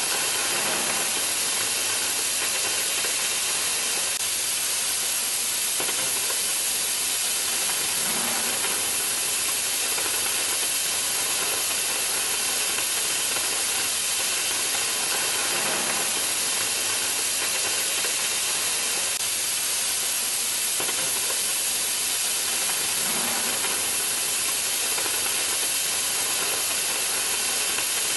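Oxy-fuel cutting torch on an HK-12MAX-3 track-running flame-cutting carriage, hissing steadily as its flame and oxygen jet cut through steel plate.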